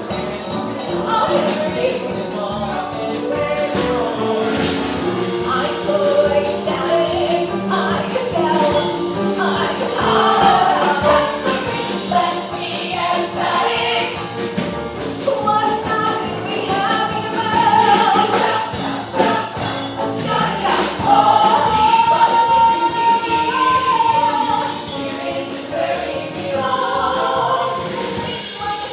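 Singing with instrumental accompaniment, one long held note about three-quarters of the way through.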